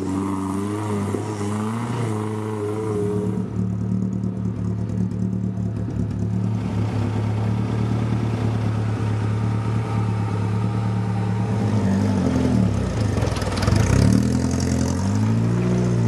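Off-road 4x4 engine running, its revs rising and falling in the first few seconds, holding steady through the middle, then revved up and down again near the end.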